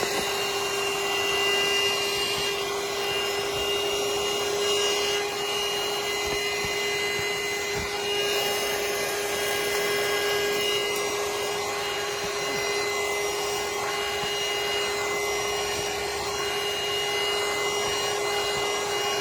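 Handheld CHERYLON portable car vacuum cleaner running steadily: an even motor hum with a thin high whine over the rush of air.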